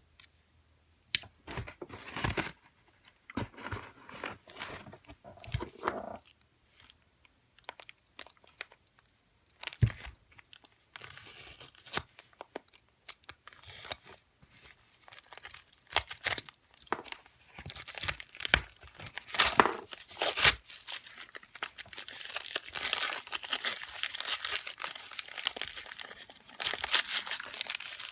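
Packaging being torn and crumpled while a parcel of locks is unpacked, with scattered sharp knocks and clicks of the locks being handled and set down. The crinkling becomes nearly continuous in the last few seconds.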